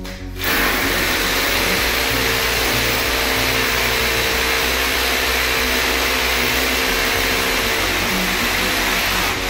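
Electric drill boring into the masonry floor at the base of a wall, drilling holes for termite chemical injection. It starts about half a second in and runs steadily under load, easing off near the end.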